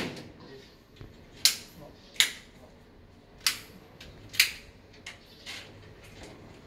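Removable mosquito-net panel and its frame giving sharp clicks and snaps as it is pulled free at the top of its track: four loud clicks about a second apart, then a couple of fainter ones.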